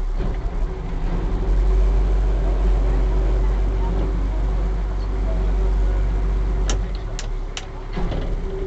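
Small river ferry's engine running with a steady drone over a heavy low rumble. Three sharp clicks come near the end.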